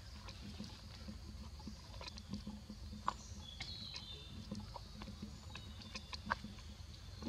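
Scattered light clicks and taps as a baby monkey handles a small milk carton, turning it over in its hands.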